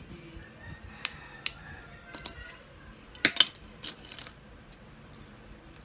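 LELE plastic building bricks clicking and clattering as pieces are handled and picked through on a table: a few sharp clicks in the first two seconds, then a louder cluster of clatters about three seconds in.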